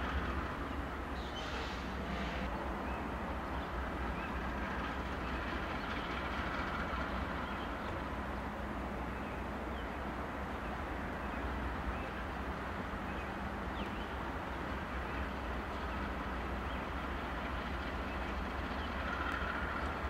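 Diesel freight locomotives running as they move slowly through a rail yard: a steady low engine rumble, with a faint thin squeal rising briefly about six seconds in and again near the end.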